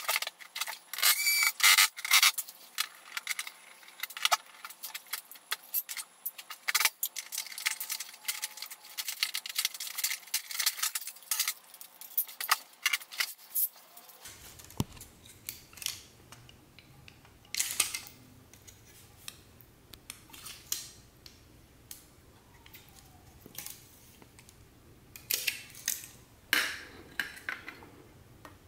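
Quick clicks, taps and metallic clinks of tools, screws and metal parts being handled while a flat-screen TV is taken apart. The clatter is dense in the first half and thins to scattered taps after a change in the background about halfway through.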